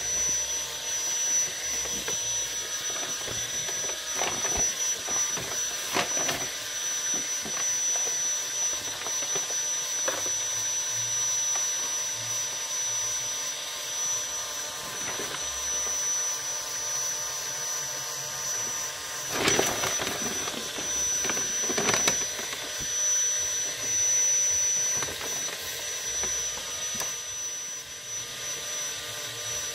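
Brush strokes scraping and dragging through thick black paint on paper, heard as irregular short scrapes, the strongest near the middle and after about twenty seconds, over a steady background hiss with a thin high whine.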